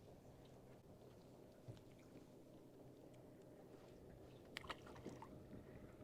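Near silence: a faint steady low hum with a few soft clicks and taps. The loudest is a short cluster of clicks about four and a half seconds in.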